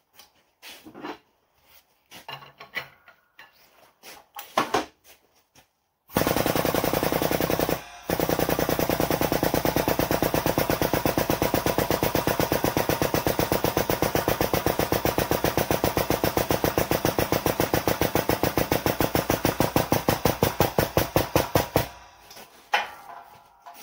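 Air-over-hydraulic pump of a shop press running in a rapid, even train of pulses, several a second, for about fifteen seconds, with a short pause near the start and a stop near the end. Before it starts come a few light metal clinks and knocks as the parts are set under the ram.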